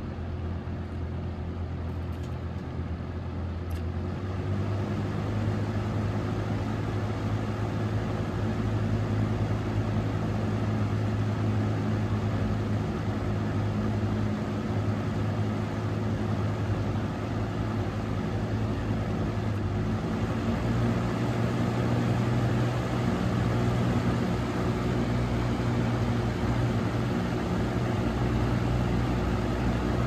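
Box fan running: a steady motor hum under the rush of air from the spinning blades. About four seconds in the hum steps up in pitch and grows louder as the fan gathers speed, then it holds steady.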